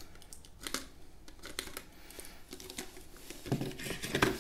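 Clear plastic blister packaging of two DDR4 laptop RAM sticks crinkling and clicking as the sticks are handled and taken out of it, with a few sharper clicks, the loudest near the end.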